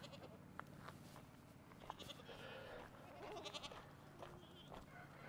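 Goats bleating faintly, a few calls about two and three and a half seconds in.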